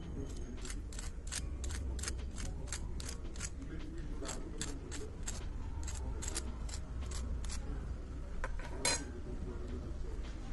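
A fork tapping the crisp fried crust of a dosa-batter snack ball, a run of light even clicks about three a second, then one louder crack about nine seconds in as the ball is broken open.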